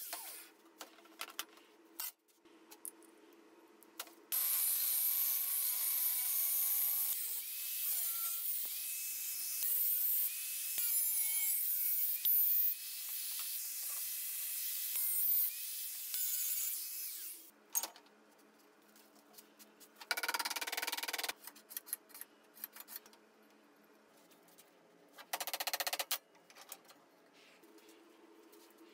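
Angle grinder running on sheet steel for about thirteen seconds, its whine wavering as it bites. Then two short bursts of grinding come a few seconds apart.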